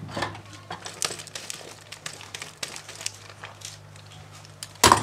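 Dishes being washed by hand in a sink of soapy water: scattered light clinks and rustles of crockery and utensils over a faint steady hum. A brief loud burst of noise near the end.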